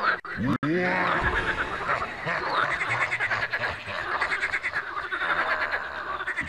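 A chorus of frogs croaking, many calls overlapping with fast pulsing notes, broken by two very short dropouts within the first second.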